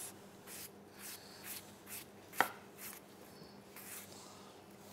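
Knives cutting and peeling apples over a plastic chopping board: quiet soft strokes about twice a second, with one sharp knock of a blade on the board about two and a half seconds in.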